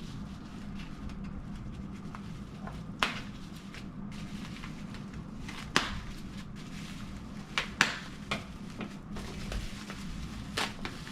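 Packaging being handled and pried open by hand: scattered rustling with a few sharp clicks and knocks, the loudest around the middle, over a steady low hum.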